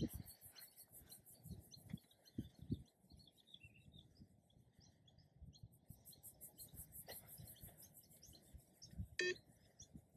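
Mostly quiet, with faint bird chirps and a few soft thuds. About nine seconds in, a single short electronic beep from the Yo-Yo test's audio track sounds, the cue for the next 20 m shuttle.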